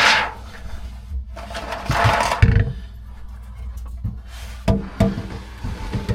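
Scraping and rustling with a few dull knocks of hands and tools working on the faucet's plumbing inside a cramped sink cabinet, ending in two sharp knocks close together.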